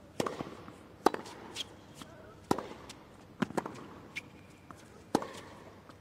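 Tennis ball struck by rackets and bouncing on a hard court during a rally: a string of sharp pops, starting with the serve, about one every second or so.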